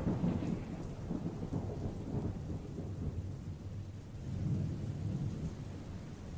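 Thunderstorm sound effect: low rolling thunder over rain. It is loudest at the start, dies down, then swells again about four and a half seconds in.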